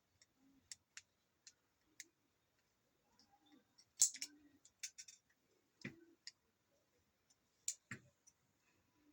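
Irregular sharp clicks and light taps of small parts and tools being handled while a Dyson V10 vacuum is taken apart or put back together, loudest in a quick cluster about four seconds in, with two duller knocks near six and eight seconds.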